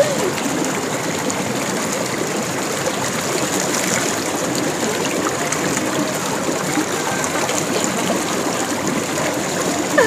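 Shallow stream rushing steadily over rocks.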